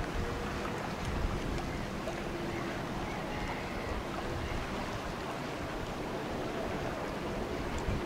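Steady outdoor wind noise buffeting the microphone, over a low background rumble with a faint steady hum.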